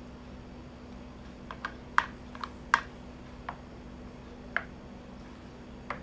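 A plastic spoon clicks and taps against the bowl while stirring pancake batter and mashing out the lumps. About eight irregular clicks come after the first second and a half.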